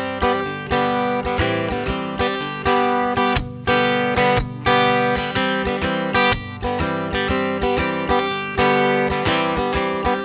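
Background music: an instrumental break in a song, strummed acoustic guitar in a steady rhythm.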